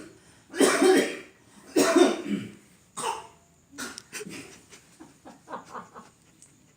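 Coughing during prayer: two loud coughs about a second apart, then a fainter cough and a string of shorter, quieter coughs. The imam coughs and the worshippers behind him copy it.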